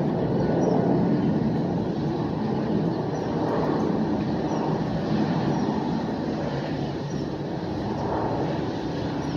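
Steady low outdoor rumble with no clear siren tone, and faint short high chirps recurring about every second or so.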